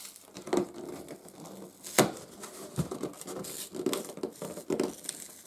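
Glued flaps of a cardboard box being pried and torn apart, with crinkling, scraping and tearing and a sharp crack about two seconds in; the original factory glue is still holding tight.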